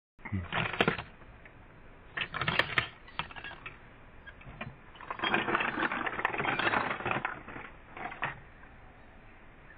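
Stanley plastic toolbox being unlatched and opened: clicking and clattering of its metal latches, lid and tray, in short bursts about a second in and two and a half seconds in, a longer rattle from about five to seven seconds, and a brief one near eight seconds.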